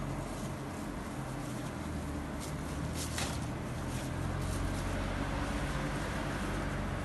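Steady low hum of street and shop background noise, with a few brief faint rustles about two and a half and three seconds in as gloved hands handle parsley and lettuce.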